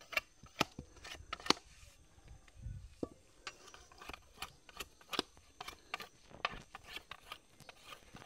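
Machete blade chopping and scraping along a wooden pole, stripping off its bark: a run of sharp, irregular knocks, about two or three a second, loudest in the first second and a half.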